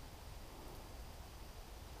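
Faint outdoor background: a steady hiss with a low rumble underneath and no distinct sound.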